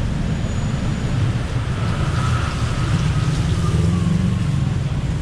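City road traffic: a steady low rumble of cars and buses running past, swelling briefly about two seconds in as a nearer vehicle goes by.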